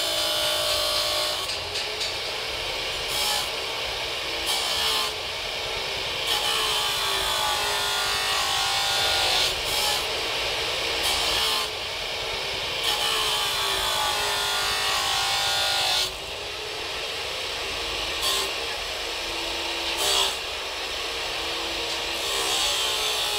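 Electric abrasive cut-off saw grinding through steel, its motor tone sagging as the disc bites and recovering between cuts, over a harsh grinding hiss that comes and goes with each cut.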